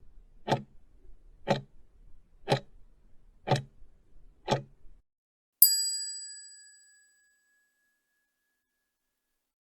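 Quiz countdown sound effect: five clock ticks one second apart, then a single bell ding about five and a half seconds in that rings out for over a second, marking the end of the answering time.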